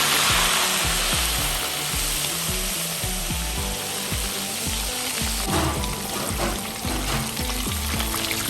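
Fish deep-frying in hot oil, a steady sizzle, over background music with a steady beat.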